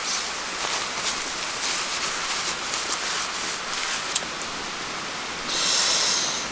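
Steady rushing water of a stream, with scattered sharp clicks and a louder hiss lasting about a second near the end.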